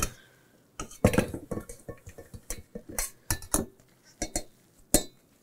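Stainless steel colander clanking and clinking against a stainless steel mixing bowl as shredded zucchini is tipped out of it. It makes a string of sharp, ringing metal knocks, loudest about a second in and near the end.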